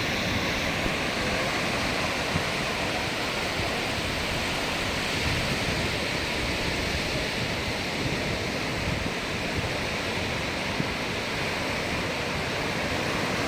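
Steady wash of sea surf breaking on the beach, with wind on the microphone.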